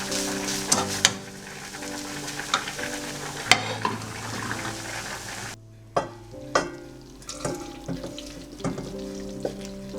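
Food sizzling in a frying pan while it is stirred, with clicks and scrapes of the utensil against the pan. The sizzle cuts off suddenly a little past halfway, leaving scattered clicks under soft background music.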